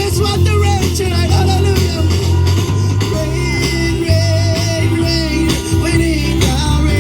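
A live praise band playing a song with a steady drum beat, heavy bass and guitar, with a voice singing the melody.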